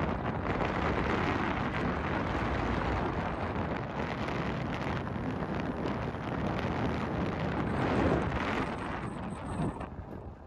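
Wind buffeting the microphone, with a low engine rumble beneath it; the noise eases off near the end.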